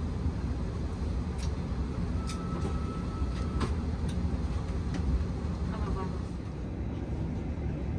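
Steady low roar of an Airbus A330-200 cabin, with a few light clicks and a short steady high tone of about a second after two seconds.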